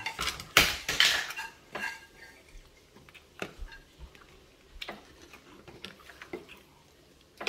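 Metal spoon scraping and clinking against a plastic bowl of rice: a louder scrape just under a second in, then scattered light clicks.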